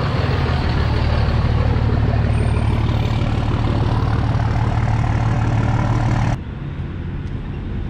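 Dodge Ram 2500's 5.9-litre Cummins turbo-diesel inline-six running steadily as the truck creeps forward at low speed. Its sound drops off sharply about six seconds in.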